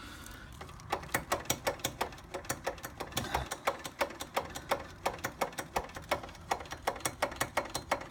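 Rear brake of a ZZR1400 being pumped rapidly to bleed air from the brake line, the lever or pedal clicking about five or six times a second from about a second in.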